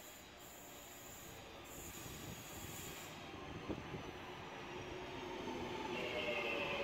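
Class 323 electric multiple unit approaching and running into the platform, growing steadily louder, with a single click about halfway through. Near the end, as it passes close by, several steady high tones come in.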